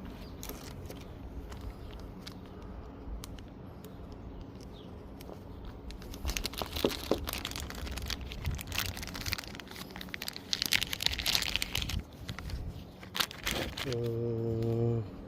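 Crinkling and rustling of plastic packaging being handled and torn open, with scattered clicks, busiest in the middle; a short low hum near the end.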